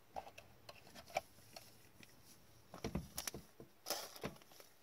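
Gloved hands handling a trading card and clear plastic card holders: a run of small clicks, taps and rustles, busiest about three and four seconds in.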